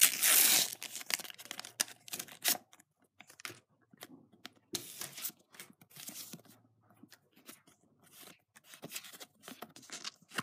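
A Panini sticker packet is torn open with a loud rip lasting about a second, followed by a shorter rip. Then comes scattered rustling and soft flicking as the stickers are leafed through by hand.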